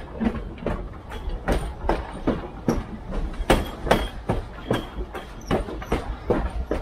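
Train wheels clickety-clacking over rail joints at running speed. The clicks come in quick pairs a few times a second over a steady low rumble.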